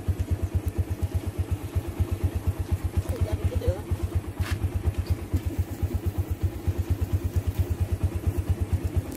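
Single-cylinder motorcycle engine of a tricycle running steadily underway, heard from inside the sidecar as a fast, even low pulsing.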